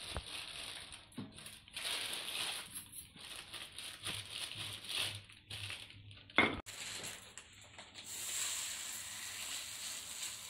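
Rolling pin pressing corn-flour dough flat between sheets of plastic wrap, the plastic crinkling and rustling with each irregular stroke, with one sharp knock near the middle. About eight seconds in it gives way to a steady sizzle as the roti lies on a hot iron tawa.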